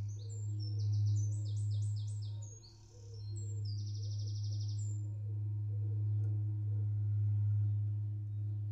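A cello holding one long, low bowed note, very steady and nearly pure in tone, which briefly dips about three seconds in. Small birds chirp and trill high above it during the first five seconds.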